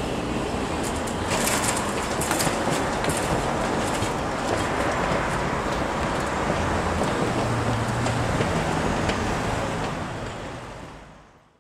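Road traffic: cars driving across a railway level crossing, with a steady street noise and a few sharp clatters between about one and three seconds in. The sound fades out near the end.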